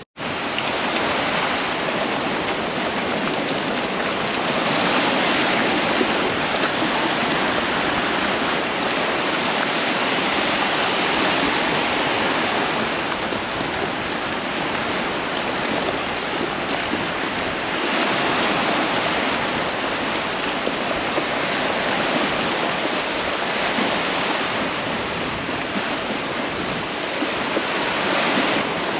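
Sea surf washing and breaking in shallow water: a steady rush of noise that swells and eases every several seconds.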